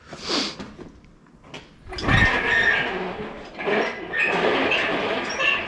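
Steel engine hoist being rolled across a concrete floor, its casters grinding and squeaking, with a low thump about two seconds in.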